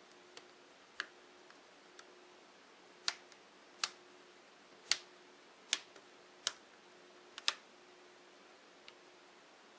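Plastic screen bezel of an Acer Aspire One 532h laptop being pressed back onto the display lid, its clips snapping into place in a series of sharp clicks, about seven of them roughly a second apart.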